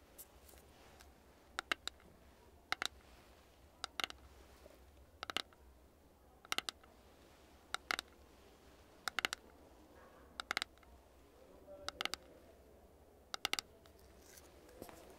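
Fingernails tapping on a plastic cosmetics jar of cleansing pads: short, crisp clicks in little clusters of two or three, repeating about every second and a half.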